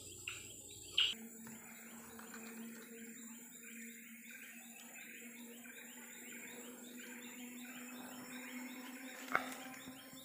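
Tropical rainforest insects and birds calling: a steady chorus of insects with a fine repeating chirp and a low steady hum that sets in about a second in. A few sharp short chirps stand out, two in the first second and one about nine seconds in.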